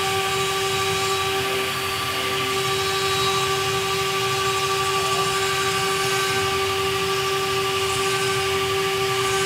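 Twin spindles of a two-head stone CNC router carving stone slabs. A steady, unchanging motor whine runs over a continuous cutting noise.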